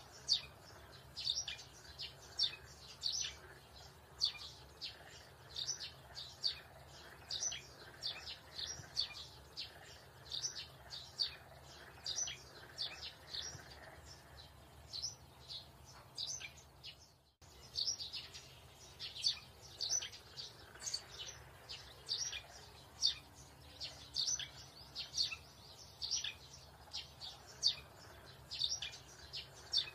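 Small birds chirping over and over, short high chirps about two a second, over a faint steady low hum; the sound drops out briefly a little past halfway.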